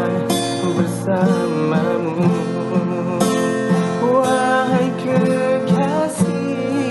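Music: an instrumental passage of a song, led by a strummed acoustic guitar, with no singing.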